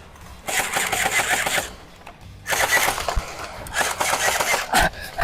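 Game guns in a close-quarters skirmish firing rapid automatic bursts, heard as two stretches of fast clicking fire: a short burst, a pause of under a second, then a longer burst.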